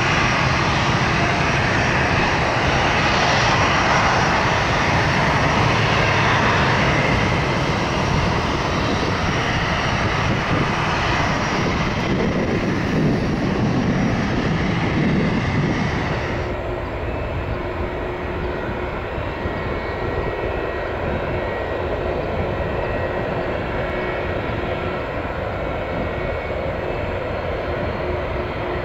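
Steady jet airliner noise, a dense rush with a faint steady whine. A little over halfway through, the sound changes abruptly and becomes somewhat quieter and duller.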